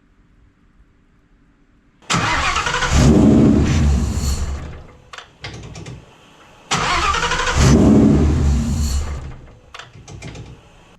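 Coyote-swapped Mustang's Ford 5.0 Coyote V8 started twice, each time catching and running for about two seconds before dying away. It will not stay running because its air intake is still disconnected.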